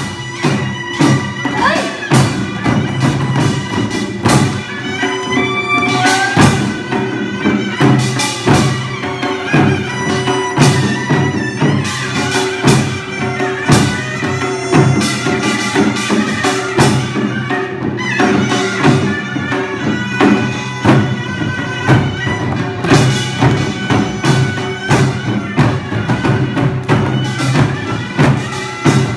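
Korean traditional music played live: a loud, reedy wind instrument holding and sliding between sustained notes over steady percussion strikes.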